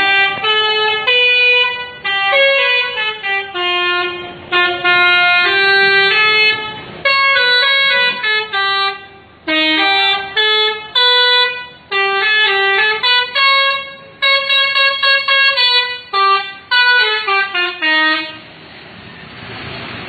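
Indonesian tour bus's 'telolet' musical horn playing a fast tune of short, stepping notes, stopping about eighteen seconds in.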